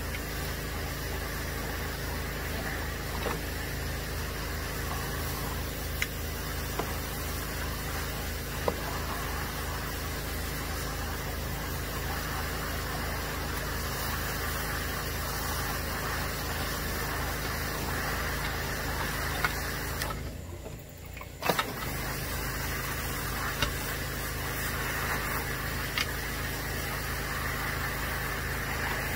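Pressure washer engine running steadily, driving the hydrojet attachment used to flush out gutters. There are a few light clicks, and the sound drops out for about a second about two-thirds of the way through.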